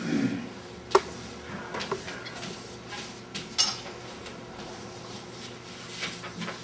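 Chalk on a chalkboard: a sharp tap about a second in, then short scrapes and ticks as lines are drawn, with a dull low bump right at the start.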